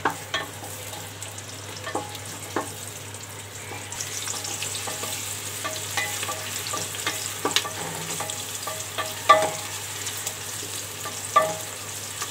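Sliced onions frying in hot oil in a metal pressure cooker, sizzling steadily, while a wooden spatula stirs them and knocks against the pot in short ringing taps. The sizzle grows stronger about four seconds in, and the loudest knock comes a little after nine seconds.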